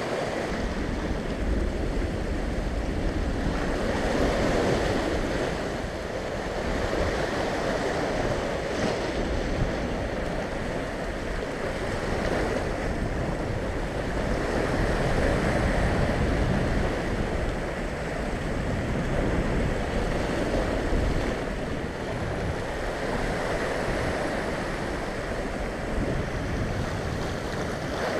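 Sea swell breaking and washing over the rocks of a rocky shoreline, rising and falling in loudness as each wave comes in, with wind rumbling on the microphone.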